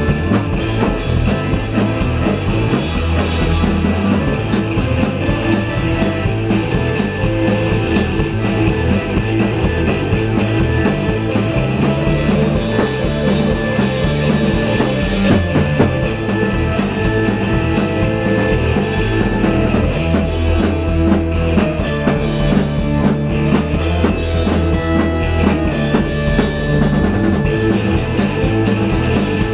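A rock band playing live: a drum kit driving a steady beat under distorted electric guitars and bass through amplifiers, loud and continuous.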